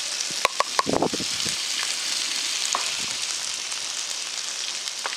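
Chunks of beef and pork with freshly added chopped onion sizzling in hot oil on a disco plow-disc pan, a steady high hiss with a few sharp crackles in the first second.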